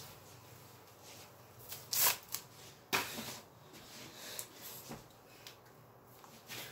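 Toy sword being swung and knocking: a few sharp clacks, two close together about two seconds in, another about a second later and one more near five seconds, with light rustling between.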